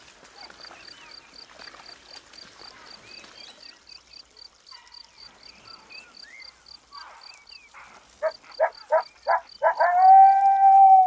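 A cricket chirping steadily, about three chirps a second. Near the end, a wild animal calls: a quick run of about seven short, sharp notes, then one long, held, level call, the loudest sound here.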